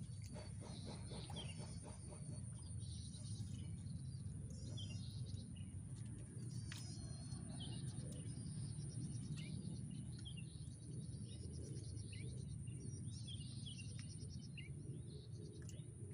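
Small birds chirping in short, scattered calls over a steady low rumble of background noise, with a continuous thin high-pitched whine.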